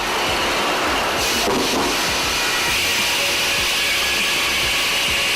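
Sawmill saw cutting through timber, a loud, steady whining hiss.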